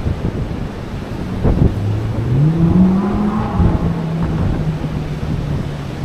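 Wind buffeting the microphone, with a motor vehicle's engine note coming in about a second and a half in, climbing in pitch, then easing back a little to a steady note.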